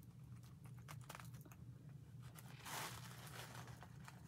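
Faint rustling and crinkling as a wig in its net is handled and turned over, with one louder rustle near the middle.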